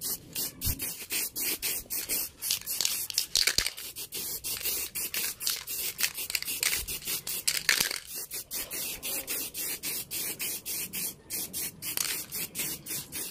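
Sherlux Art Yellow aerosol spray paint can hissing as it lays a second coat on a motorcycle fairing, the hiss broken into rapid short pulses, about four a second.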